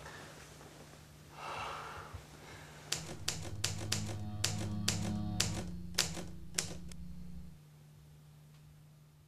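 Typewriter key strikes as a title sound effect: about ten sharp clacks at an uneven pace, over a low droning music tone that cuts off suddenly about seven and a half seconds in.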